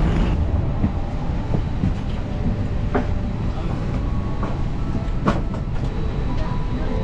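Steady low rumble of an Airbus A320 cabin during boarding, with a couple of short knocks from walking down the aisle.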